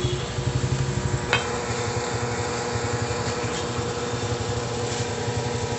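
A small engine idling steadily with a fast low pulse, and one sharp metallic clink about a second in from a hand tool on the motorcycle's exhaust fittings.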